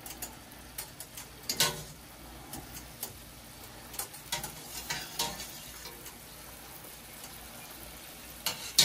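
Wet broccoli florets sizzling in hot olive oil and garlic in a frying pan, with scattered clinks and taps of a wire skimmer against the pan and a sharper knock near the end.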